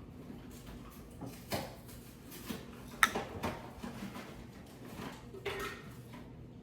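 Scattered light clicks and knocks of a slime kit's pieces being handled on a tabletop, with one sharp click about three seconds in.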